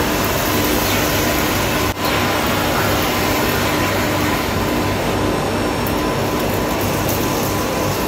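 Philips PowerCyclone 7 (FC9570) bagless canister vacuum cleaner running steadily on its low power setting, its floor nozzle picking up dry debris from a tiled floor. The noise drops for a moment about two seconds in.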